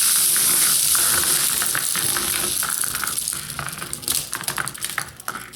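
Plastic Bakugan balls rolling fast across a hard play surface: a steady rolling hiss that fades over about four seconds, with many small clicks and knocks as they bump and settle.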